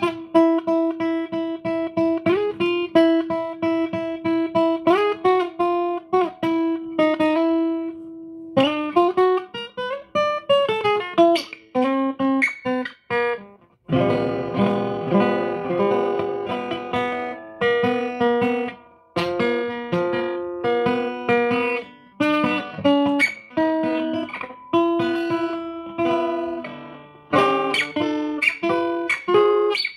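Acoustic guitar being played: picked notes over a held ringing note at first, then fuller chords from about halfway.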